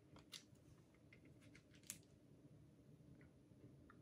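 Faint, scattered light clicks and taps from a hair clipper and its small parts being handled, with a clearer click about half a second in and another just before two seconds.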